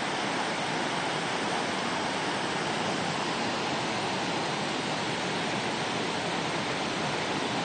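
Floodwater of a swollen creek pouring across a washed-out road and spilling over its edge like a small waterfall: a steady, unbroken rush of water.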